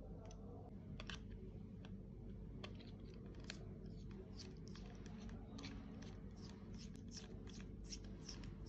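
Precision screwdriver bit turning a tiny bottom screw beside an iPhone's Lightning port: a string of small, quick clicks and ticks, few at first and coming several a second in the second half.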